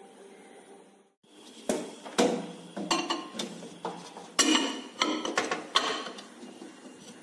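A quick run of about ten sharp knocks and clicks: dishware and a microwave oven being handled as the dish of chicken goes in.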